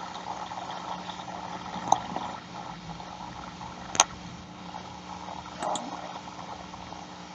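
Steady background hiss with a faint low hum, the noise of an open microphone on a video call, broken by a few short clicks, the sharpest about four seconds in.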